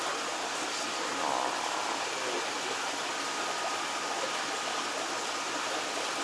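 Steady rushing and splashing of water in a large aquarium tank, the filtration return stirring the surface, with a faint steady high tone running under it.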